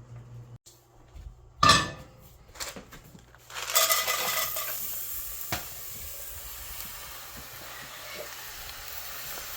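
A knock of cookware, then ice hitting a preheated Dutch oven and hissing steadily as it turns to steam, with a sharp click partway through.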